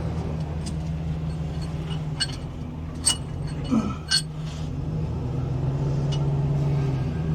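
An engine running steadily at idle, with a few sharp metallic clinks of parts or tools being handled about two to four seconds in.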